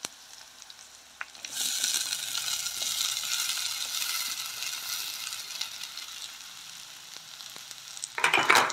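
Grated coconut and thibbatu (turkey berry) mixture tipped into hot oil in a clay pot, starting to sizzle about a second and a half in. The sizzle is strongest at first and dies down over the next few seconds. A short loud noise comes near the end.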